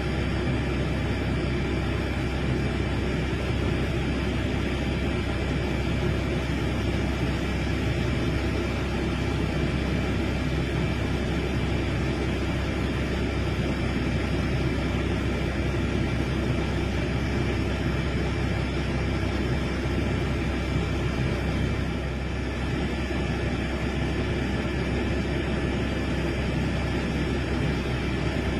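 Heavy diesel engine of a large excavator running steadily, a constant low rumble with a faint high whine above it.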